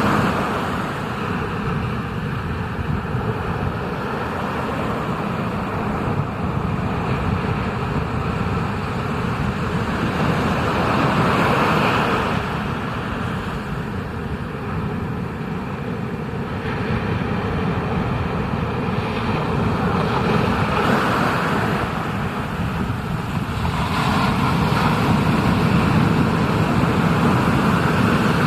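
Ocean surf and rushing water heard through a POV surf camera: a steady, low, rumbling wash that swells and eases several times.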